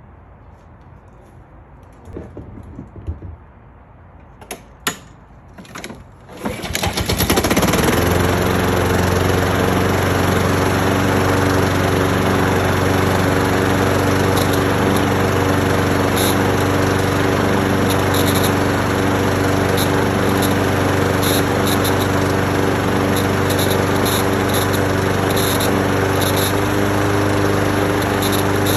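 Honda HRX217 lawn mower being pull-started: a few sharp clicks from the recoil starter, then the engine catches about six seconds in and runs at a steady speed.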